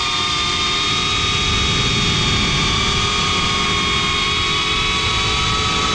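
GEPRC CineLog 35 FPV drone's brushless motors and propellers whining at a steady throttle in flight, a high buzzing whine that holds one pitch.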